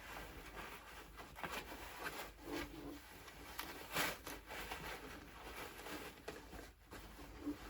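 Soft, irregular rustling and handling noises as the cloth sleeves of a Halloween animatronic's costume are pulled and arranged.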